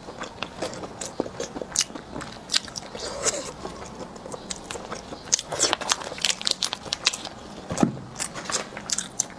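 Close-miked eating of small roasted eggs: biting and chewing with many short wet mouth clicks and smacks.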